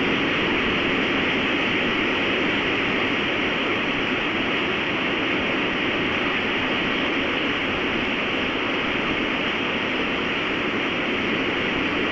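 Strong storm wind blowing, a steady rushing noise that does not let up.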